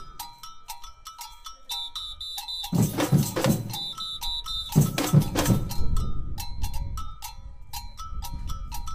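Samba percussion band playing: a quick, repeating pattern of ringing metal bell strokes runs throughout, joined by spells of deep drum hits about three seconds in and again about five to six seconds in.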